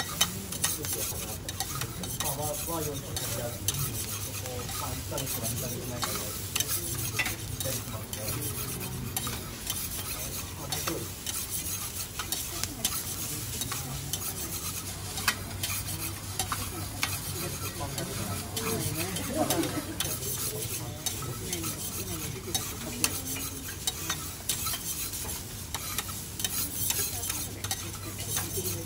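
Steel spatulas scraping, chopping and tapping on a hot teppanyaki griddle, with the food on it sizzling. Short metal scrapes and taps come in a quick, irregular run, over a low steady hum.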